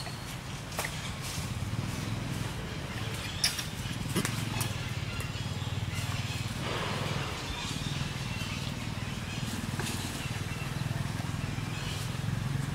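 Outdoor ambience: a steady low hum with scattered light clicks and a few brief, faint high squeaks, and a short rustle about halfway through.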